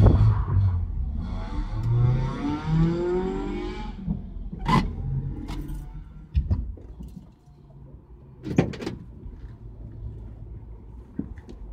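A 1977 Camaro's engine rising in pitch for a few seconds as the car pulls into a parking space, then dying away as the car stops. A few sharp clicks and knocks follow inside the cabin.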